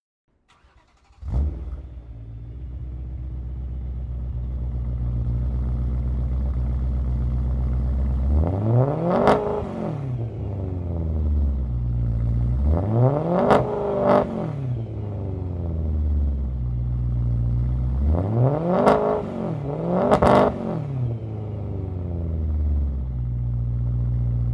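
BMW E9X M3's 4.0-litre S65 V8 through an RPI full exhaust, starting up about a second in with a sharp flare and settling to a steady idle. It is then revved in short throttle blips, one around the middle and two close together later, each rising and falling back to idle.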